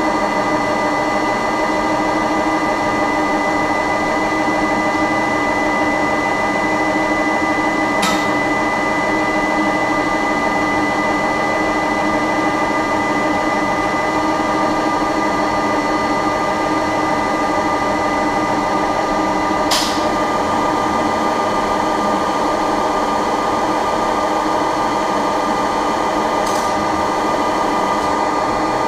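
KZh1844 special rolling machine running steadily, a constant machine hum with several fixed tones. It is broken by a sharp click about a third of the way in, another about two-thirds in, and a fainter one near the end.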